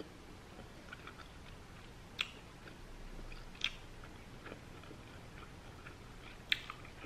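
A person chewing a mouthful of cauliflower sushi with the mouth closed: quiet, soft mouth sounds with scattered small clicks, the sharpest about two, three and a half and six and a half seconds in.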